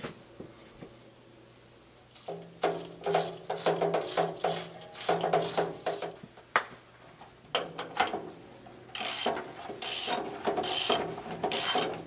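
Socket ratchet clicking as a new anode rod is screwed into and tightened in the top of a water heater. The clicks come in quick runs, then as a regular train of strokes about one every half second near the end.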